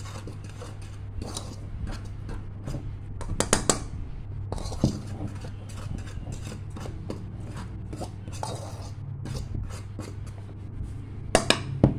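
Bare hand stirring flour in an aluminium pot: soft scraping and rubbing of the powder against the metal, with a few sharp clicks and taps on the pot around a third of the way in and several more near the end. A steady low hum runs underneath.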